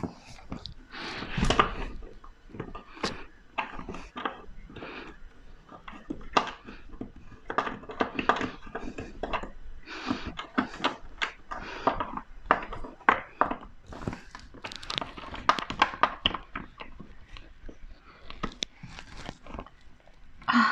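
Irregular knocks, clicks and scrapes of hands working at a dishwasher, prying at its plastic legs and housing, with a louder cluster of knocks about a second and a half in.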